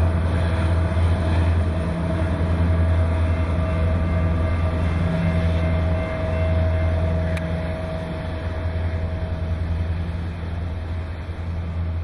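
Diesel locomotives of a loaded coal train running past, a loud steady low drone with the rumble of the train over it, easing slightly in the second half.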